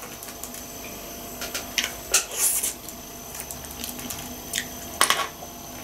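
Eating sounds: wet chewing, with a few light clicks of wooden chopsticks against a clear plastic sushi container as a roll is picked up.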